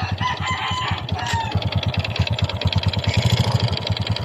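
Honda XRM 125's single-cylinder four-stroke engine idling with a rapid, regular knock from the cylinder block, the sound of piston slap. A rooster crows in the background during the first second or so.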